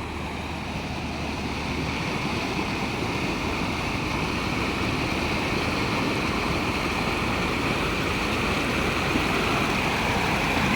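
Floodwater rushing through a canal that has overflowed its banks: a steady rush of water that grows a little louder.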